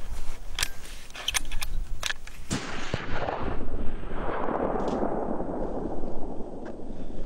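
A run of sharp clicks and knocks over the first two and a half seconds, then a longer rustling noise that fades near the end.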